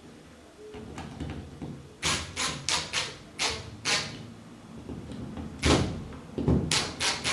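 Cordless drill driver running in short bursts as it drives screws through the smoke alarm's plastic base into the ceiling, in two runs of quick pulses.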